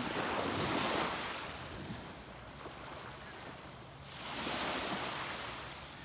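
Small, gentle waves breaking and washing up a sandy beach: one surge of surf at the start, a lull, then another wave washing in about four and a half seconds in.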